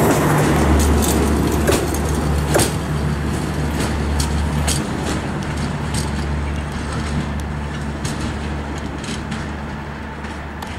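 Strizh Talgo-type passenger coaches rolling past and away over the switches, wheels clicking now and then over the track with a steady low hum; the sound fades slowly as the tail car recedes.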